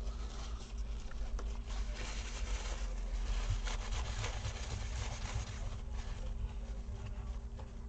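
Paper tissue rubbing over a laptop's processor and motherboard, wiping off old thermal paste: an uneven scratchy rustle.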